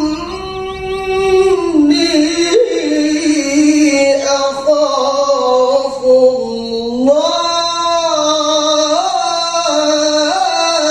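Male qari reciting the Quran in the melodic tilawah style with a high, powerful voice, drawing out long ornamented notes that slide and waver in pitch and rise sharply about seven seconds in.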